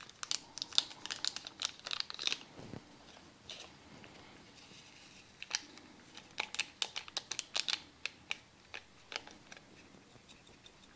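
Crinkling and tearing of a Crystal Light drink-mix packet being opened and handled, in two bursts of small crackles, the first at the start and the second about halfway through.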